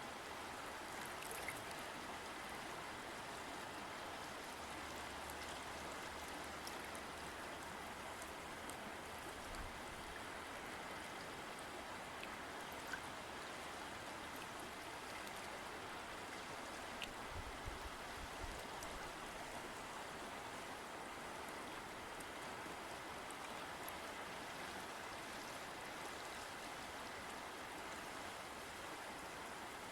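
A river or stream flowing: a steady rushing of water with faint splashes and ticks in it.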